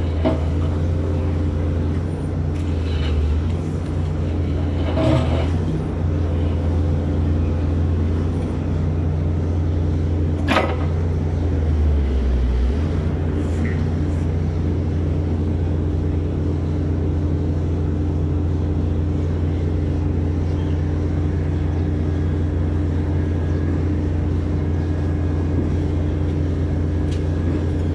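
Steady low engine drone of the hydraulic power unit driving a Giken Silent Piler as it presses a steel sheet pile into the ground. A single sharp knock comes about ten seconds in, and the lowest tones of the drone shift slightly a couple of seconds later.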